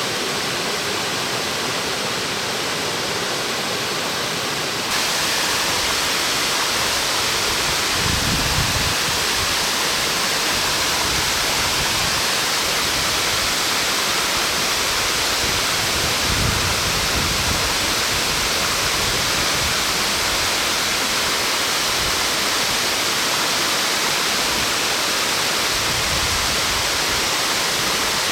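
Osen Falls, a 40 m branched waterfall, rushing in a steady roar of falling water. It steps up louder and brighter about five seconds in, with a few brief low rumbles later on.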